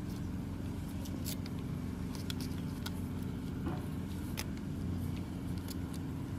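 Scattered light clicks and taps as a corded angle grinder is handled and its power cord and plug are unwound, over a steady low hum.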